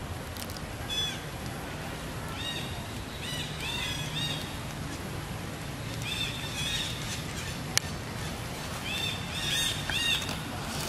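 Birds chirping: clusters of short, high, arched chirps over a steady outdoor background, with one sharp click a little past the middle.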